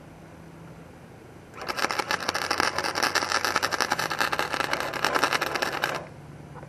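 Wire-feed welder arc crackling steadily for about four seconds as it welds the steel exhaust pipe on a riding mower's engine. It starts about a second and a half in and cuts off sharply. A steady low hum sits under it before and after.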